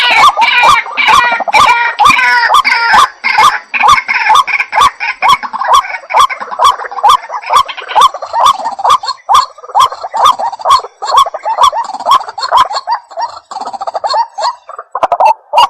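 White-breasted waterhen calling loudly: a long, rapid run of harsh, repeated croaking notes, about two to three a second. The notes thin out near the end and stop abruptly.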